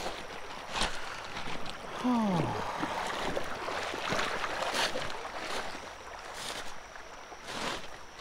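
Footsteps crunching on loose river gravel, several separate steps, over the steady rush of shallow water running across a gravel riffle. A brief falling tone sounds about two seconds in.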